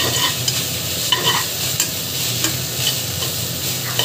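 Sliced onions frying and sizzling steadily in hot oil in an aluminium pot, while a slotted metal spatula stirs them, scraping against the pot in short strokes every half second or so.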